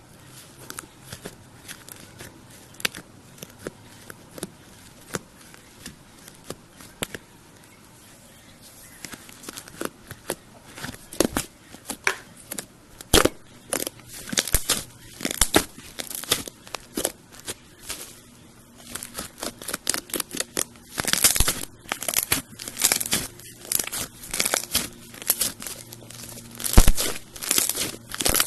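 Iceberg slime being pressed and squished, its hardened crust crackling and crunching. The crackles are sparse and faint at first, then come thick and loud from about a third of the way in.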